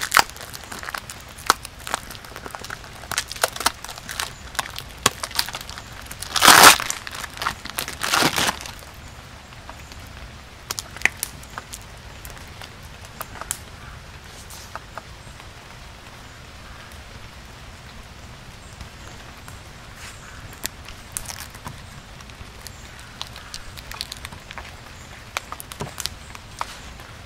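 Vacuum-seal plastic bag crinkling and rustling as it is pulled off a raw steak, loudest twice about six and eight seconds in. After that, only scattered faint crackles of plastic film being handled.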